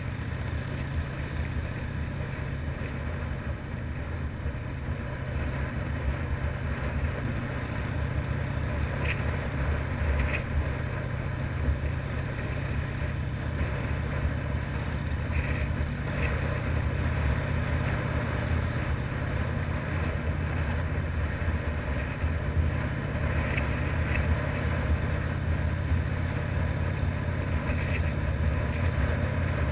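Harley-Davidson FXR's V-twin engine running steadily, a low rumble that grows slightly louder in the second half.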